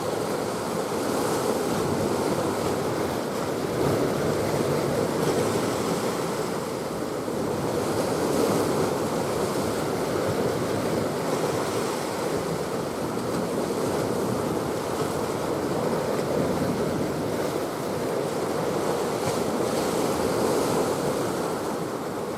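Steady rush of sea and wind: waves and water noise with wind buffeting the microphone.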